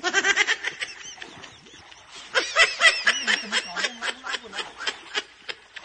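Laughter: quick, repeated snickering giggles, getting stronger about two seconds in.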